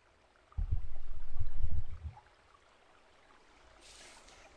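A low, wavering rumble for about a second and a half, about half a second in: wind buffeting the microphone. Faint rustling near the end.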